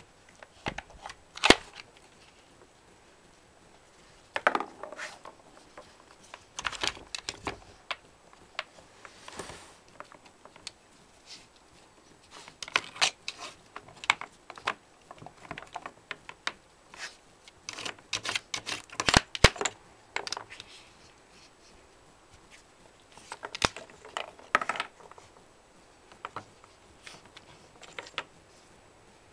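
A dog working a wooden puzzle board with nose and paw, knocking and sliding its wooden blocks and pegs: irregular clusters of sharp wooden clicks and clatter with short quiet gaps. The loudest knocks come about a second and a half in and again around the middle.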